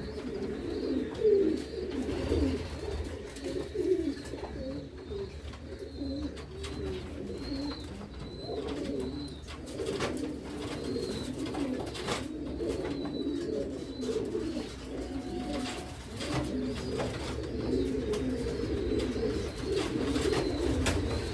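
Many domestic pigeons cooing at once, a continuous overlapping warble, with scattered short clicks.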